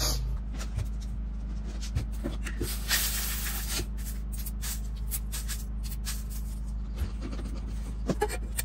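Cornflakes being crushed by hand in a plastic bowl: scattered short crackles and rustling, with a louder hissing rustle about three seconds in, over a steady low hum.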